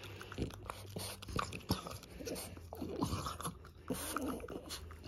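A French bulldog's breathing noises and brief small throaty sounds while its muzzle is held and its teeth are brushed, with a few soft clicks.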